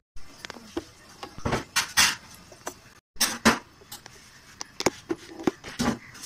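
Scattered light clicks and knocks with a few short scrapes: kitchen handling noise, with the loudest scrapes about two seconds in and a sharp knock about three and a half seconds in.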